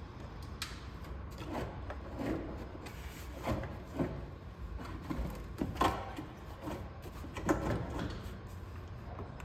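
Hard parts being handled during truck interior work: a series of irregular knocks and scrapes, the loudest about six and seven and a half seconds in.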